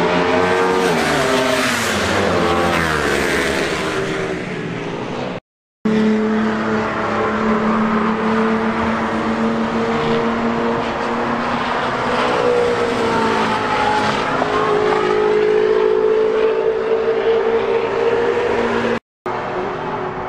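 Race cars driving past at speed, their engine notes dropping in pitch as each one goes by, with steady running in between. The sound cuts out briefly twice: about five and a half seconds in and near the end.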